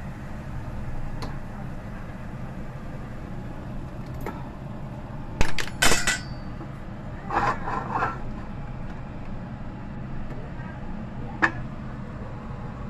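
A spatula knocks and scrapes against a nonstick frying pan as asparagus is stir-fried and scooped out, over a steady low hum. A loud clatter with a brief ringing comes about six seconds in, then a cluster of scraping knocks.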